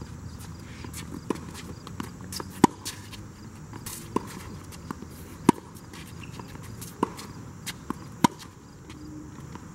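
Tennis rally on a hard court: sharp pops of the ball off the strings and off the court surface, one every second or so. The loudest pops come about every three seconds, from the nearer player's strokes.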